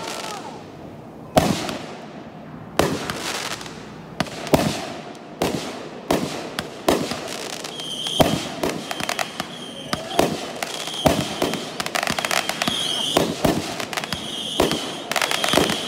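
Aerial fireworks going off in a series of sharp bangs, each with a short trailing crackle. The bangs are a second or more apart at first and come thick and fast from about halfway. In the second half a high whistle is heard again and again.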